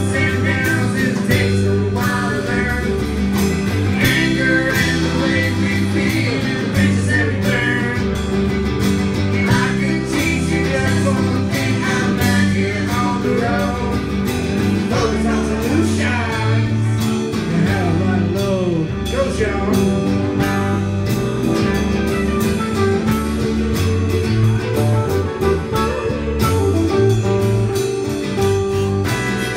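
Live band playing a song with electric and acoustic guitars, bass guitar and a drum kit, keeping a steady beat.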